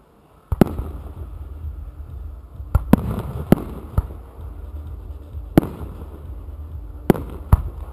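Aerial firework shells launching from mortar tubes and bursting overhead: a string of sharp bangs, the first about half a second in, then one every second or two, over a steady low rumble.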